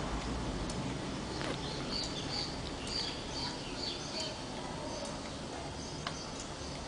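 Slowly turning cutaway motorcycle engine model, its moving parts giving short high squeaks about two to three times a second, a few sharp clicks, and a low steady hum.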